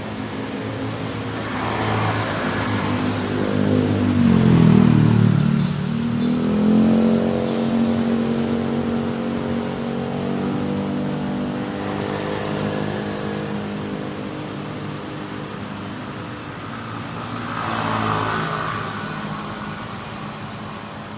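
Street traffic with a vehicle engine running close by: its pitch drops about four seconds in as it slows, then rises again as it pulls away and holds steady for several seconds. Other vehicles whoosh past about two seconds in and again near the end.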